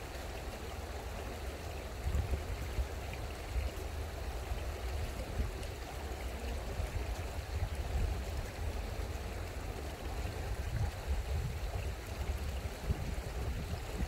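Stream water running, a steady continuous rush of water with an uneven low rumble underneath.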